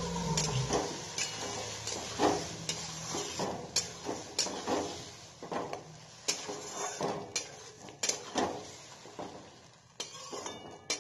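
Metal spatula scraping and stirring thick curry in a kadhai (Indian wok), in repeated strokes about two a second that grow fainter toward the end.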